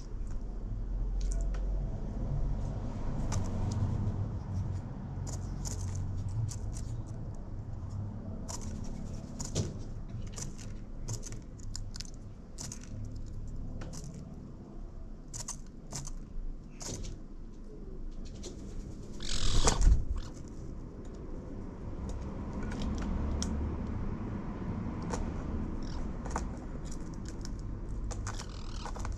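Magpies pecking at seed in a metal feeding tray and at a water bowl: irregular sharp taps scattered throughout, over a low steady rumble. One louder, brief rushing noise about two-thirds of the way through.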